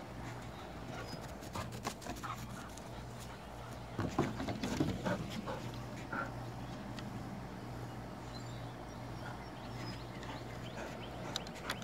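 A giant schnauzer's claws clicking and paws tapping on wooden deck boards as it walks, in scattered irregular steps with a louder flurry about four seconds in.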